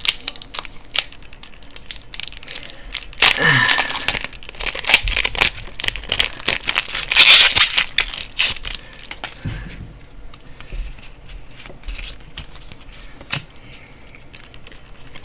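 A foil Pokémon booster-pack wrapper being torn open and crinkled, with louder tearing about three seconds in and again about seven seconds in, among small clicks and rustles of handling.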